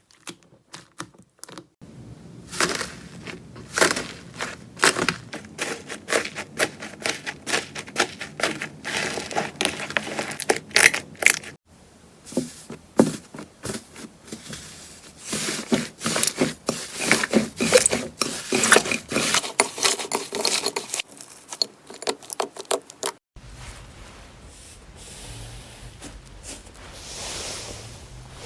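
Slime being squeezed and worked by hand, giving dense, irregular crackling and clicking pops, with a short pause about halfway. Near the end it changes to a softer, steadier rustling hiss.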